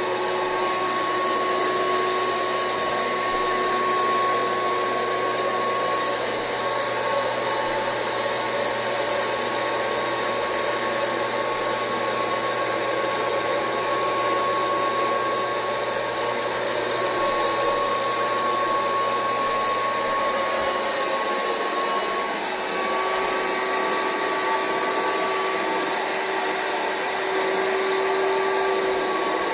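Rug Doctor carpet extractor's vacuum motor running steadily, drawing cold water back up through the upholstery hand tool on a water-only extraction pass. It is a continuous loud rushing with a few held whining tones; about two-thirds of the way through, a low hum drops out and the pitch of one tone shifts slightly.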